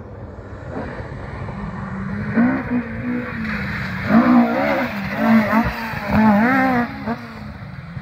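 Mk2 Ford Escort rally car's engine revving hard, its pitch sweeping up and down several times as it powers through a water splash on a gravel stage, with the rush of spray and gravel under it. It is loudest in the middle seconds as the car passes close.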